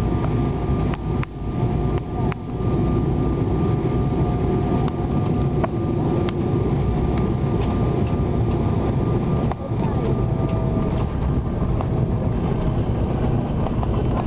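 Jet airliner on final approach heard from inside the passenger cabin: a loud, steady rumble of engines and rushing air with a steady high whine from the engines. A few short knocks and rattles come through the cabin.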